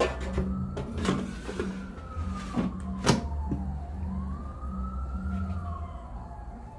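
A siren wails slowly up and down in the background, over a steady low hum. Several sharp knocks and clatters of kitchen handling come through it, the loudest right at the start and about three seconds in.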